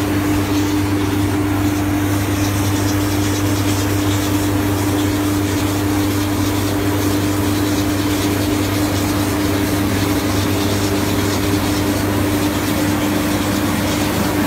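Mobile brick-making machine's engine running with a steady, unbroken drone and hum as the machine moves along laying rows of moulded bricks.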